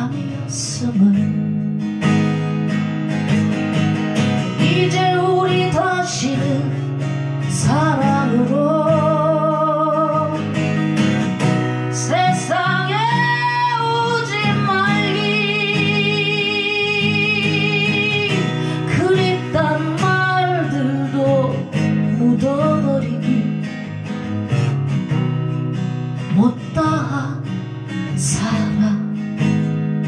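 Live solo performance of a slow Korean folk ballad: an acoustic guitar strummed steadily while a voice sings the melody over it, holding long notes with wide vibrato in the middle stretch.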